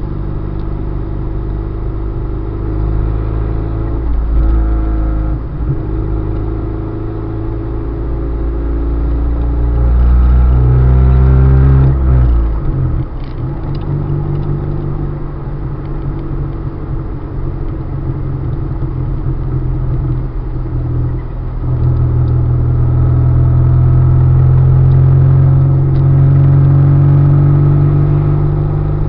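Car driving, its engine and road rumble rising and falling with speed; the engine note sweeps down about twelve seconds in, then builds again later.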